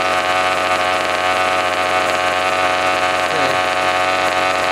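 Smartech 27cc RC truck's small two-stroke gas engine idling steadily, holding an even pitch.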